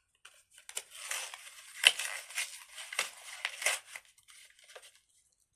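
Crinkling and crunching handling noise: a run of sharp crackles, the loudest about two seconds in, fading out near the end.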